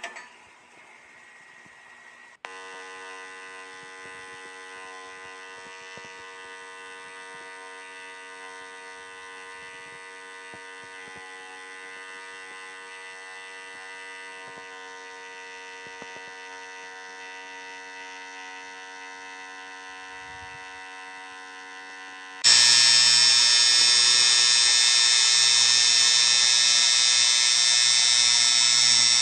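A small electrical device buzzing steadily. It switches on about two seconds in and jumps to a much louder, harsher buzz about twenty-two seconds in.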